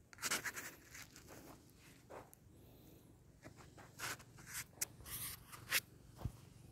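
Irregular rustling and scraping as tomato plants are brushed and handled at close range, with a few sharp clicks between about four and six seconds in.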